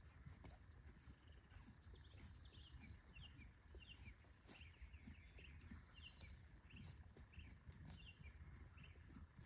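Faint bird chirping: a run of short, quick notes starting about two seconds in, over a low rumble and a few soft clicks.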